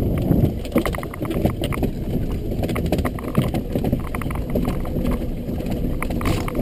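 Golf cart rolling over a bumpy grass track: a steady low rumble with frequent small rattles and clicks.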